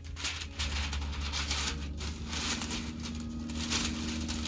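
Parchment paper crinkling and rustling in several short crackles as it is handled and cut to size.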